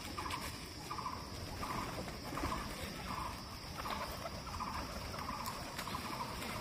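A short rattling call, a quick run of ticks, repeated very evenly about every three quarters of a second.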